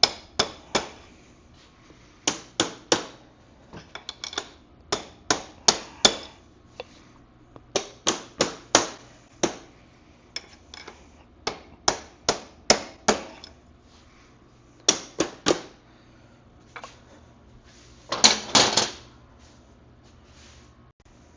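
Sharp hammer taps, mostly in quick groups of two or three, driving out a stuck rear axle on a 1974 MX100 dirt bike; the axle is in tight. Near the end a rougher rattling scrape lasts about a second.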